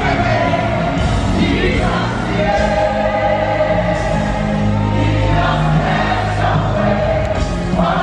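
Gospel choir singing long held notes over music with a steady low bass.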